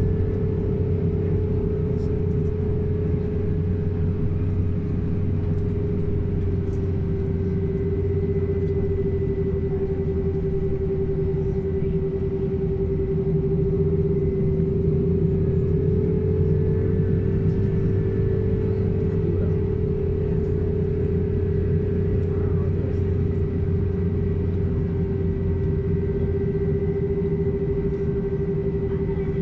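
Steady cabin noise inside an Airbus A320 as it taxis before takeoff: engines and air conditioning making a continuous low drone with a steady mid-pitched hum on top, and no rise in power.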